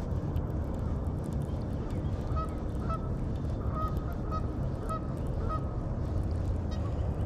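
Geese honking: about six short calls in quick pairs, over a steady low rumble of background noise.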